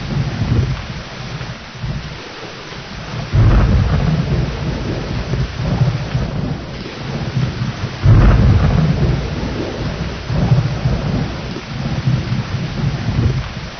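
Steady heavy rain with thunder. Two sudden low rumbles break in about three and eight seconds in, each rolling on for several seconds.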